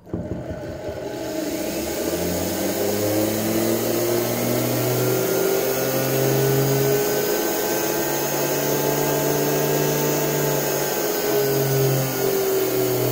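A 1 HP washing-machine universal motor, built for 220 V AC, running on 60 V DC. It spins up in the first couple of seconds, its whine rising in pitch, then runs at a really high speed with a steady high whine.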